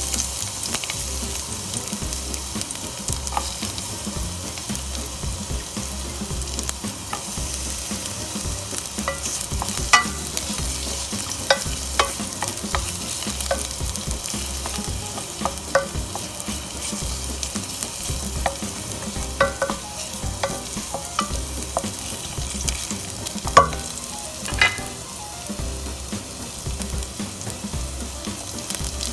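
Chopped garlic sizzling steadily in hot oil in a metal pot, stirred with a wooden spatula, with occasional short sharp ticks.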